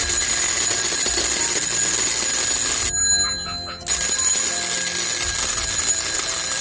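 Electric alarm bell ringing continuously, set off by a PIR motion sensor. It stops about three seconds in and starts ringing again a second later, when a hand waves in front of the sensor.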